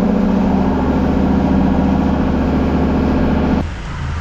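Steady, loud mechanical hum of a running engine or motor, holding one pitch, which cuts off abruptly about three and a half seconds in.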